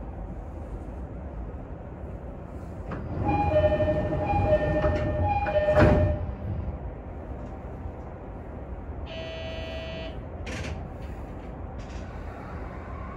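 Commuter train's door chime sounding a two-note pattern three times as the sliding doors move, ending in a loud thud of the doors, over the steady low rumble of the train standing at a station. About nine seconds in, a short buzzer sounds, followed by a click.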